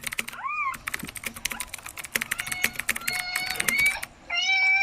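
Cat-attracting sound effects: rapid clicking like typing throughout, a short rising-and-falling squeak about half a second in, and steady high whistle-like tones from about two and a half seconds on.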